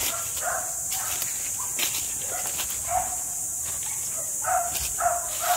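An animal calling in short, mid-pitched calls about six times, with scattered crackles of steps through dry leaf litter and a steady high-pitched drone behind.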